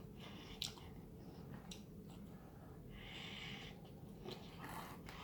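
Quiet close-up eating sounds of someone chewing pizza, with a few small mouth clicks and a soft breath through the nose about three seconds in.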